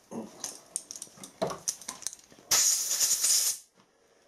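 Small metallic clicks and taps of tools working at a freshly tapped hole in a steel air-rifle action, then a hissing blast about a second long that cuts off abruptly.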